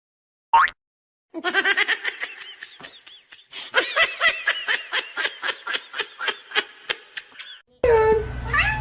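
Someone laughing hard: a long run of short, high-pitched bursts, about three or four a second, starting after a brief pause and breaking off near the end.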